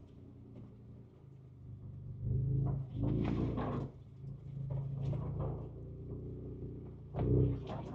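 Ford Ranger Raptor's 3.0-litre twin-turbo V6 heard from inside the cab, pulling at low speed, rising in throttle surges about two to four seconds in and again near the end. Between the surges come a few sharp knocks and rattles as the truck crawls over rough trail.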